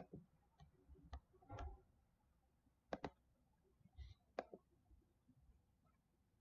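Faint computer mouse clicks, a few irregularly spaced single and double clicks, over near silence.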